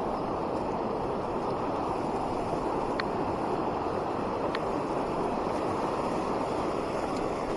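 Steady rush of a mountain trout stream, with two faint clicks in the middle.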